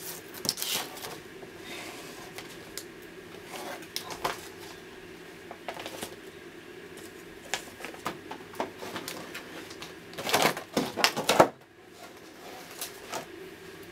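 Scattered light clicks and taps of small plastic toy pieces being handled on a tabletop, with a cluster of louder knocks about ten to eleven seconds in, over a steady low hum.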